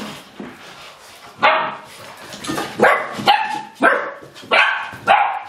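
Golden retriever puppies barking: a run of about seven short, high-pitched barks, starting about a second and a half in and coming roughly every half second.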